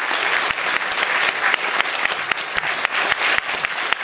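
Applause: many people clapping at once in a dense, steady patter that holds at an even level.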